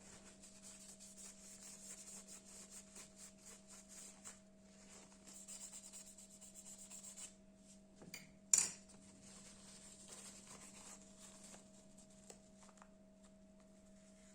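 Old thermal paste being wiped and rubbed off a laptop's processor die: quick repeated rubbing strokes, with one sharp click a little past halfway that is the loudest sound. A faint steady electrical hum sits underneath.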